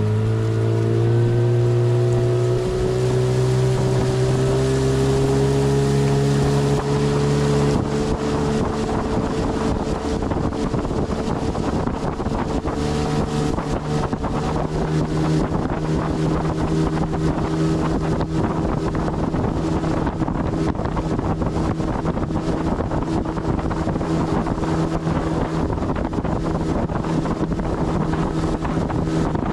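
Motorboat engine running under way, its pitch rising over the first few seconds and then holding steady. From about eight seconds in, wind buffets the microphone over the engine.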